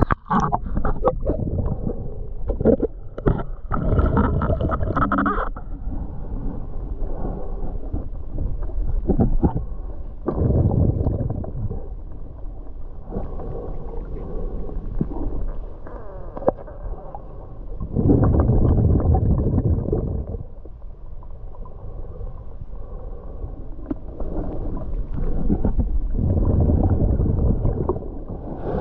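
Splashing and knocks as the action camera dips in and out of the lake surface over the first few seconds, then the muffled, dull rushing and gurgling of a camera held under water by a swimming snorkeler, swelling and fading every few seconds.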